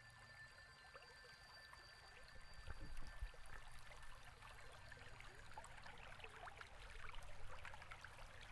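Faint trickling of a small stream, a steady patter of tiny splashes, with a couple of low thumps about three seconds in.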